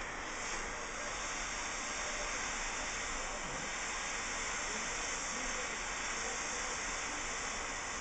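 Handheld gas soldering torch burning with a steady hiss, its flame heating a copper pipe fitting before the solder is applied.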